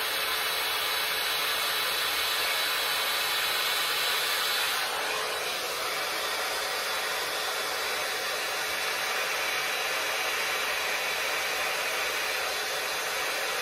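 Babyliss hot-air styling brush blowing steadily. Its sound shifts and drops slightly about five seconds in, then runs on evenly.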